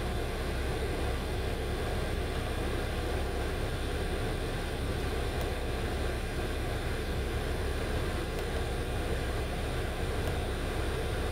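2008 Honda Accord idling with its air conditioning running: a steady, even hum with no change.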